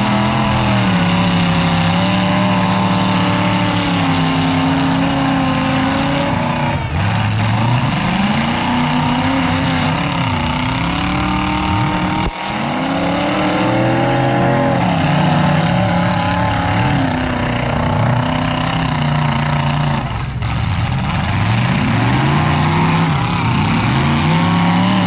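Demolition derby car engines revving hard, their pitch climbing and dropping over and over, with several engines overlapping.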